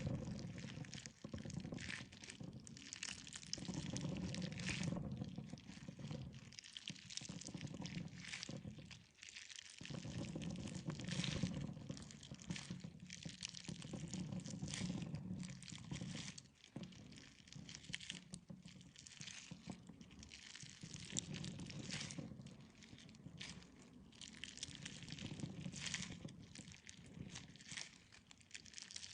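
Soft jelly being squeezed and popped: wet squishing in slow swells every couple of seconds, with many small clicks and pops throughout.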